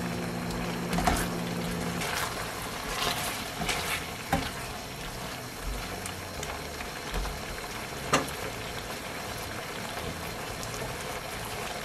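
Thick tteokbokki sauce bubbling and sizzling in a frying pan as it cooks down, with a silicone spatula stirring and now and then knocking against the pan. The loudest knock comes about eight seconds in.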